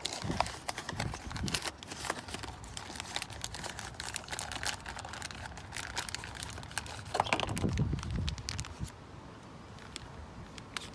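Irregular crinkling, rustling and small clicks of parts and packaging being handled during a thermostat swap, busiest in the first eight seconds and quieter after.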